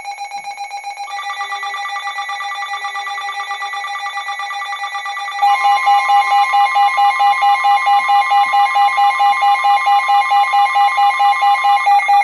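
Emergency alert attention tone: a loud electronic alarm of steady tones pulsing rapidly. About five seconds in it jumps louder with an added higher tone. It is the signal that opens a broadcast warning.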